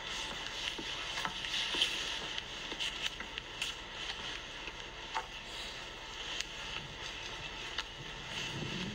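Quiet street ambience: an even hiss with a few faint ticks scattered through it.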